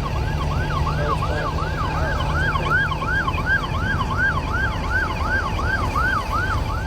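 Electronic siren in a fast yelp, its pitch sweeping up and down about three times a second, over a steady low rumble.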